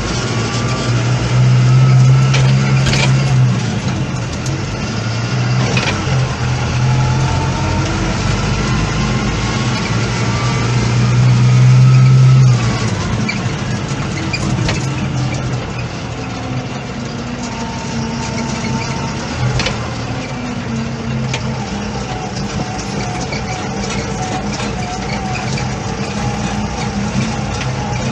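Diesel engines of heavy farm machinery running under load, the sound swelling about two seconds in and again around ten to twelve seconds in, then settling to a lower, steadier running.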